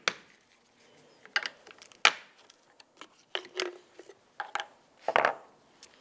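Flat-blade screwdriver prying the plastic cell caps off a serviceable car battery: about half a dozen separate plastic clicks and knocks, two of them with a short scrape.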